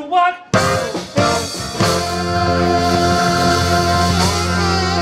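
Live soul-jazz band of saxophone, keyboards, electric guitar, bass and drums playing a loud full-band hit about half a second in and holding it as a long closing chord, with the saxophone bending notes over it.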